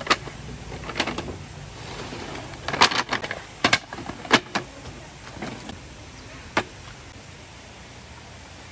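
Wooden slats of a roll-up camping table clacking and knocking as the slatted top is handled and laid onto its folding wooden frame: a series of sharp clicks, bunched together about three seconds in, the last one about two-thirds of the way through.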